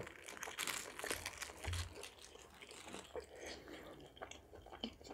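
A person chewing food close to the microphone: soft, irregular crunches and wet mouth clicks.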